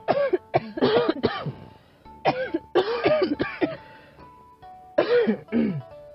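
Three short groups of a person's voice, with pitch curving up and down and breaking often, over soft background music with a few held notes.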